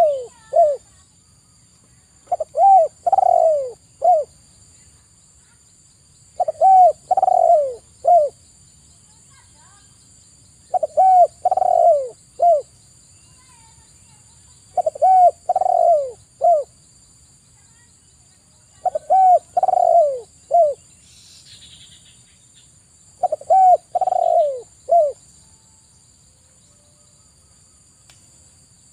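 Spotted dove (tekukur) cooing: a phrase of three or four notes, a longer note among short ones, each falling in pitch, repeated about every four seconds, six times, with a pause near the end.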